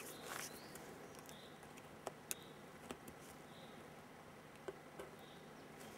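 Faint clicks and scraping of a ring-pull tin can being pulled open by hand. A few faint, short, high chirps sound in the background.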